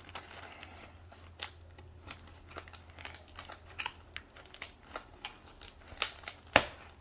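A blade cutting and prying through a running shoe's foam midsole to free the carbon plate, with irregular crackling and sharp clicks, the loudest snap about six and a half seconds in.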